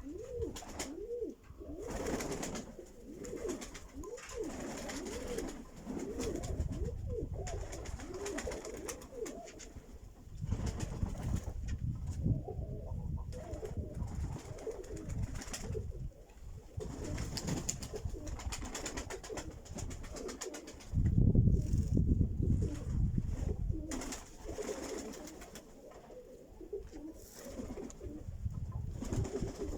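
Pigeons cooing over and over, in repeated rising-and-falling coos that are thickest in the first several seconds. Bursts of low rumbling noise come and go underneath, the loudest starting about two-thirds of the way through.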